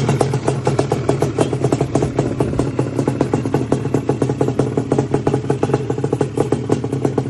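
Yamaha Banshee 350's twin-cylinder two-stroke engine running steadily, with a rapid, even crackle of firing pulses.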